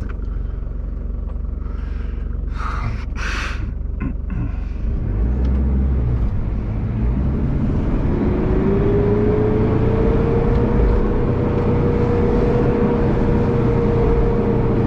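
Four-wheel-drive engine running under load while driving on a sandy track. It gets louder about five seconds in, and a steady whine joins about eight seconds in.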